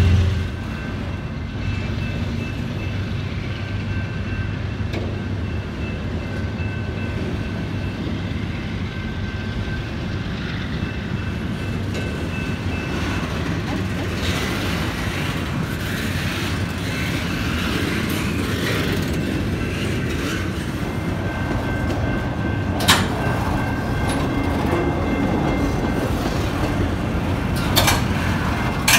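Double-stack container freight train rolling past: a steady rumble of steel wheels on the rails, with two sharp clanks about five seconds apart near the end.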